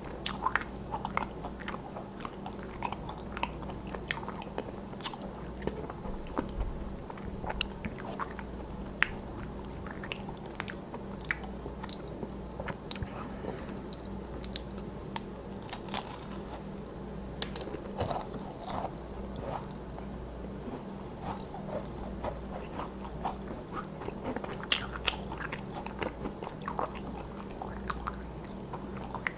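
Close-miked macarons being bitten and chewed: the crisp shells crunch and crackle in many short sharp clicks, with soft chewing in between and a steady low hum underneath.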